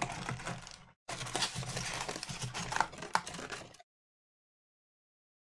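Trading card pack wrapper crinkling and cards being handled, a crackly rustle full of small clicks in two stretches, the second of about three seconds, stopping abruptly.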